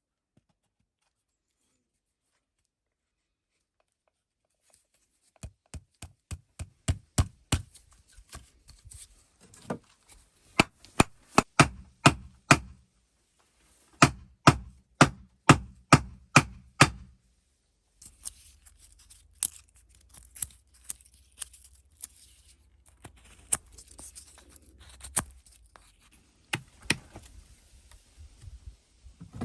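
Knife chopping on a cutting board, starting about five seconds in: quick runs of sharp strokes, about four a second, broken by short pauses, turning more irregular in the second half.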